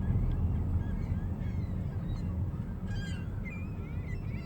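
A large flock of birds calling at once: many short overlapping calls, growing busier about three seconds in.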